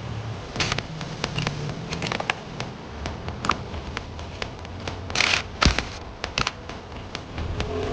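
Irregular clicks and rustling handling noise, with a short rustle and a sharp thump about five and a half seconds in, over a faint low hum.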